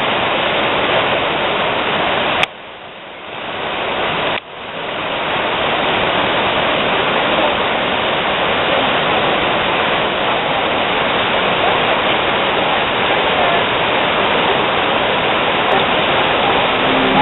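Fast-flowing floodwater rushing across a flooded river crossing, a loud, steady wash of water noise. It drops abruptly to a much lower level about two and a half seconds in and comes back in full about two seconds later.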